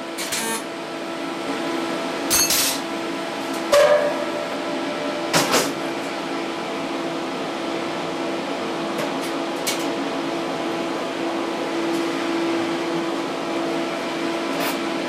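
Steady hum of workshop machinery, with sharp metallic knocks and clicks from a stainless steel box and its latch clips being handled. There are three louder knocks in the first six seconds, one ringing briefly, then a few fainter clicks.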